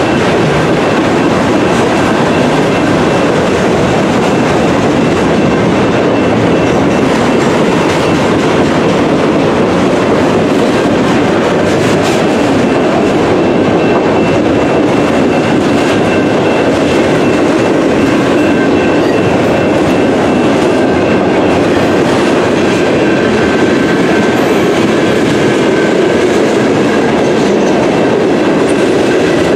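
Freight train's autorack cars rolling slowly past, a steady loud rumble of wheels on rail with clickety-clack over the joints.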